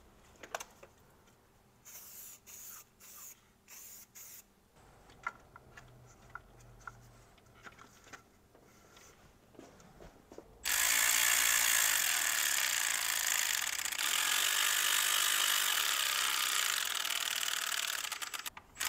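A few light clicks and rustles of gloved hands fitting a rubber intake boot. Then, about ten seconds in, a cordless ratchet starts running steadily for about eight seconds, spinning down a hose clamp's worm screw. It stutters just before it stops.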